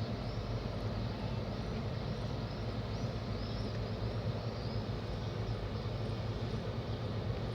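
Steady low rumble, like traffic or machinery, with faint short high chirps over it.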